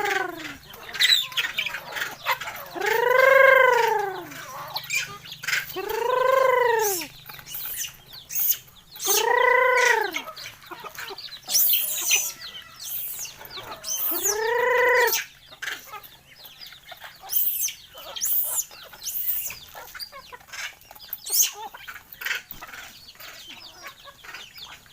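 Native chickens calling: four drawn-out calls that rise then fall in pitch, a few seconds apart, over scattered short clicks and scratching from the flock.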